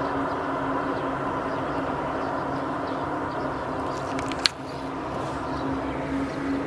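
Steady droning hum with a held low tone over a noisy rumble, a recreation of the mysterious 'strange sounds' reported from the sky. A single sharp click comes about four and a half seconds in.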